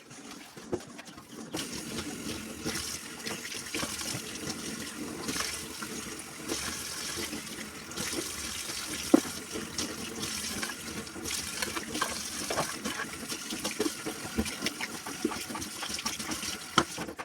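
Water running from a kitchen tap into a sink, starting about a second and a half in, with scattered light knocks on top.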